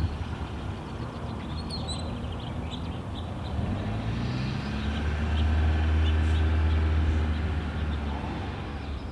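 Low drone of a passing engine that swells to its loudest about two-thirds of the way through and then fades, with birds chirping over it.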